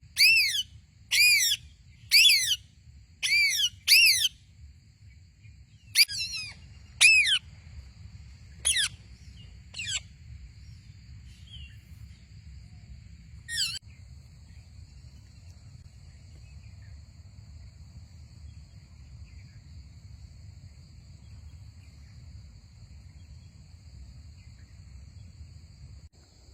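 A pet parrot squawking: about ten loud, sharp calls, several in quick succession, with the calls stopping about halfway through. Crickets chirr steadily in the background.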